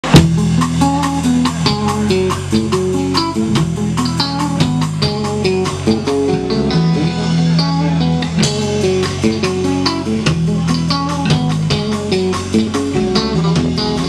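Live band playing an instrumental passage: electric guitar, bass guitar and drum kit, with a steady beat.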